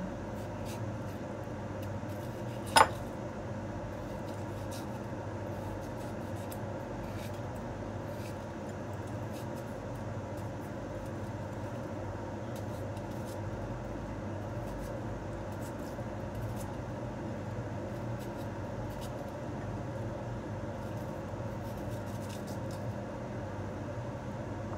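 Kitchen knife cutting watermelon chunks over a bowl: faint scattered clicks over a steady low background hum, with one sharp click about three seconds in.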